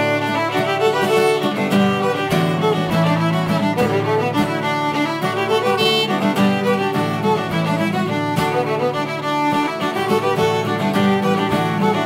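Instrumental intro theme music with a steady beat.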